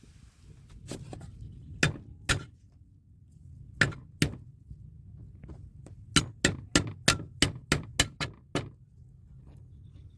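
Chopping on a cutting board: two pairs of sharp knocks, then a quicker run of about nine chops at roughly three a second.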